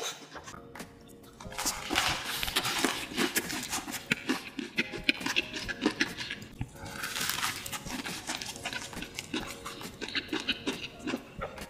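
Close-miked chewing of a full mouthful of food, a dense run of wet clicks and crackles from the mouth.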